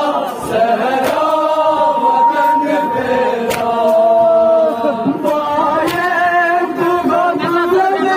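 Male reciters chanting a noha, a Shia mourning lament, into microphones with men around them joining in, in long held, wavering notes. Sharp slaps of matam chest-beating come through every second or two.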